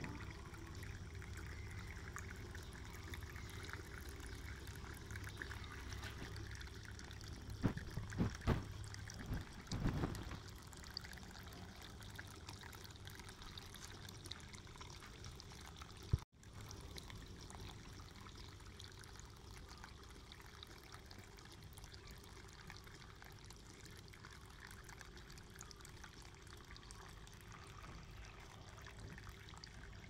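Water pouring and trickling steadily from the spouts of a tiered bamboo tabletop fountain into bamboo cups and a pebble-filled bowl. A few short, louder thumps come about eight to ten seconds in. The sound breaks off for an instant about sixteen seconds in, then carries on a little quieter.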